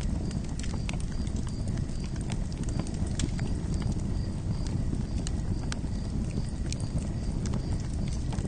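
Campfire crackling: a steady low rumble of burning wood with scattered sharp pops and snaps. A faint high tone pulses about twice a second behind it.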